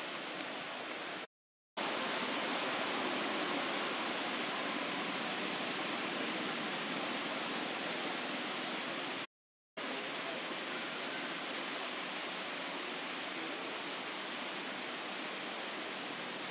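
Steady, even hiss of outdoor background noise with no distinct events in it, cut to dead silence twice for about half a second, about a second in and again about nine seconds in.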